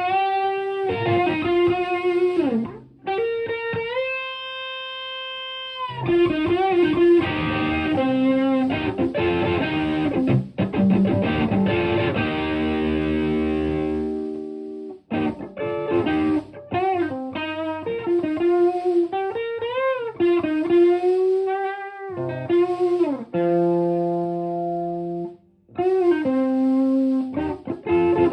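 Stratocaster electric guitar played through a TS-808 Tube Screamer overdrive pedal into a Marshall Plexi amp. It plays lead lines with string bends and vibrato and long held notes, with a few sustained chords and brief pauses between phrases.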